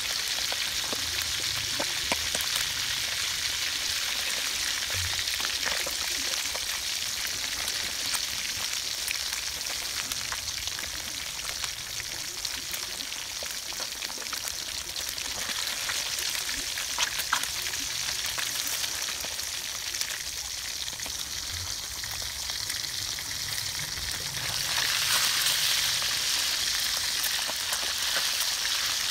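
Fish frying in hot oil: a steady sizzle with scattered small crackles, growing louder near the end.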